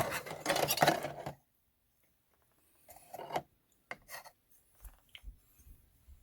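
Bare hands rubbing and scraping loosened rust off small metal vending machine parts soaked in Evapo-Rust. The scraping is dense for about the first second and a half, then breaks off into a few short rubs and small clicks.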